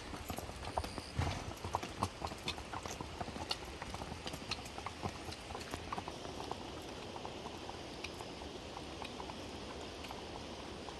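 Horses' hooves clip-clopping in irregular knocks, thinning out after about six seconds and leaving a steady background hiss.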